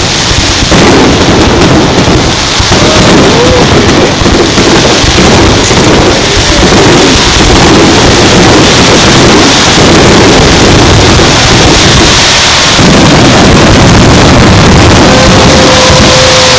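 Rapid-fire barrage of aerial firework shells bursting one on another, merging into a continuous rumble with crackle, loud enough to overload the recording.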